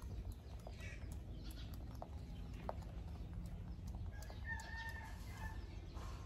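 A macaque's fingers picking through a man's hair close to the microphone: soft rustling with a few small clicks, over a steady low rumble. A chicken calls in the background about four seconds in.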